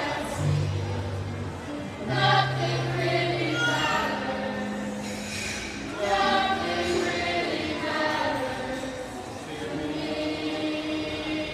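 A group of singers singing together in chorus, phrase after phrase, over an accompaniment with sustained low notes from a loudspeaker.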